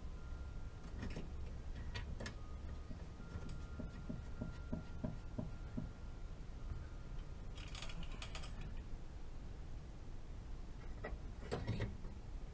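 Hand-tool work on a heat pump's refrigerant service valves, such as a valve-core tool: scattered metal clicks and a run of light ratchet-like ticks, about four a second, then a short hiss about eight seconds in and a few more clicks near the end, over a low steady hum.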